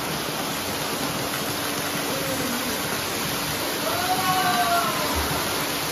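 Steady splashing and rushing of water in a swimming pool as two swimmers race across it. A faint voice calls out about four seconds in.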